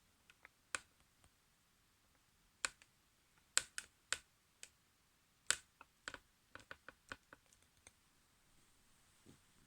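Faint, irregular light clicks and taps of small items being handled, coming more closely together in the second half.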